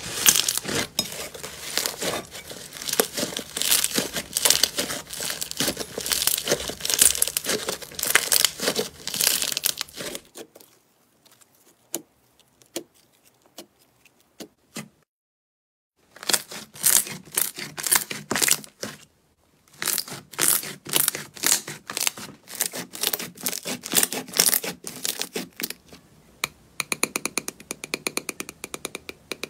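Slime being squished and stretched by hand, making a dense stream of sticky crackles and pops. The sound drops almost to silence for several seconds about a third of the way in, the crackling then returns, and near the end it gives way to a rapid, even ticking.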